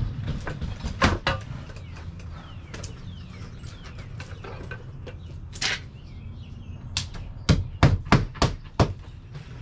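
Hammer driving a nail into the wall sheathing: one knock about a second in, then a quick run of about six blows near the end.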